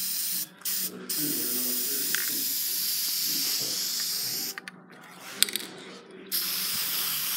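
Spray paint hissing from the nozzle: two short bursts, then a steady pass of about three seconds. It stops about four and a half seconds in, a sharp click sounds in the pause, and the spraying starts again near the end.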